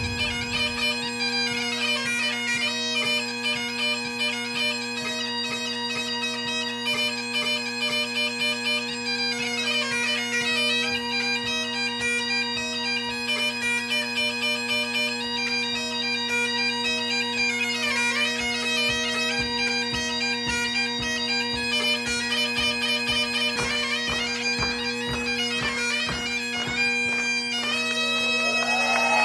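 Great Highland bagpipe (biniou bras) playing a tune, the melody moving over a steady low drone.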